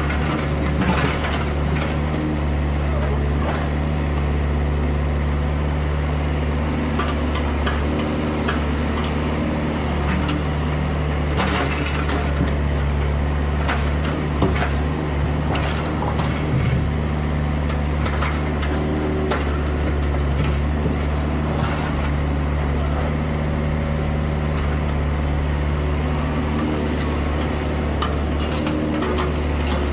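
Hydraulic excavator's diesel engine running steadily under load, with scattered knocks and cracks of demolition debris being broken and shifted; a sharper crack stands out near the middle.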